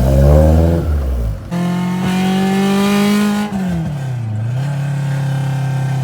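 A Honda Civic's B20 VTEC four-cylinder engine held at high revs, starting about a second and a half in; near the middle its pitch dips and comes back up, then holds steady at a lower pitch.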